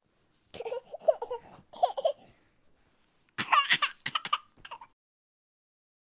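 Laughter in two short clusters of broken bursts: one starting about half a second in, and a higher-pitched one about three and a half seconds in.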